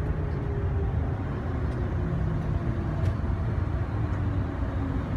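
Automated airport shuttle tram running along its guideway, heard from inside the car: a steady low rumble with a faint motor whine that slowly drops in pitch.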